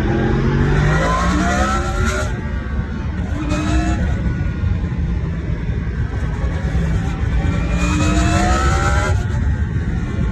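Yamaha MT-10's crossplane-crank inline-four engine under way, pulling up through the revs three times, each rise cut off sharply as the throttle closes or the next gear goes in. Between the pulls it runs at lower, steadier revs.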